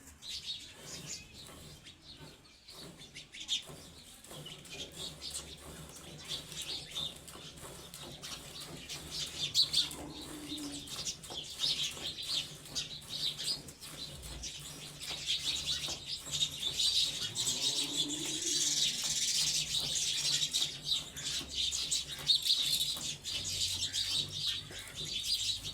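Hand milking of a Gir cow: short, quick squirts of milk hitting the pail in an irregular rhythm, with small birds chirping throughout.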